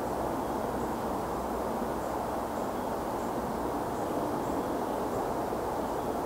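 Steady, even rushing background noise with nothing standing out.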